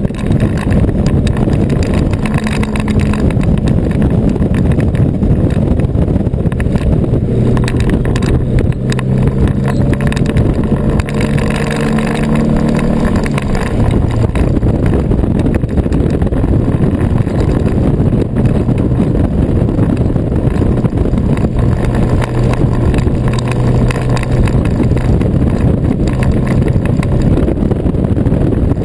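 Subaru Impreza WRX STI's turbocharged EJ25 flat-four engine pulling hard at track speed, heard from inside the cabin under loud wind and road noise. The engine note holds steady, then steps and shifts in pitch around the middle.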